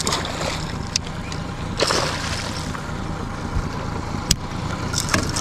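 A hooked zander splashing and thrashing at the surface beside the boat as it is brought to the landing net, with a splash just at the start and another around two seconds in, and a few sharp knocks. A steady low rumble runs underneath.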